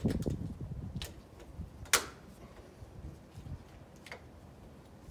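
A few sharp clicks and knocks from hands working at the corner of an aluminum sliding glass door panel's frame: a low knock at the start, a click about a second in, a loud sharp click just before two seconds, and a faint one near four seconds.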